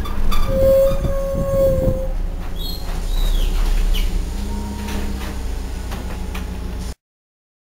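Inside a moving Irisbus Agora L CNG city bus: its Renault MGDR gas engine and drivetrain running with a steady low hum. A clear high tone is held for about a second and a half near the start. The sound cuts off suddenly near the end.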